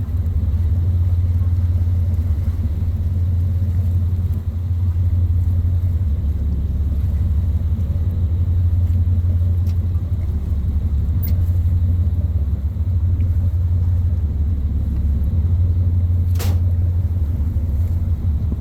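An engine's steady low drone heard from on board the vehicle carrying it, with a single sharp knock about three-quarters of the way through.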